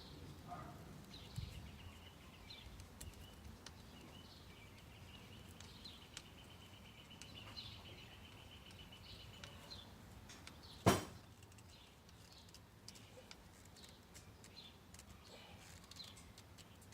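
Faint outdoor birdsong: scattered short chirps and a long, even trill lasting several seconds. About eleven seconds in there is one sharp knock.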